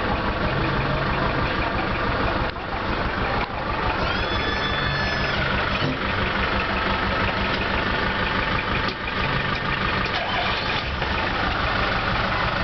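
Diesel truck engines idling steadily, with a high-pitched tone lasting about a second and a half about four seconds in.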